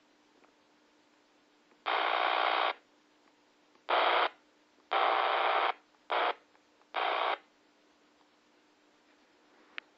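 Handheld two-way radio speaker giving five short bursts of static hiss, each switching on and off abruptly, the longest under a second. A single sharp click comes near the end.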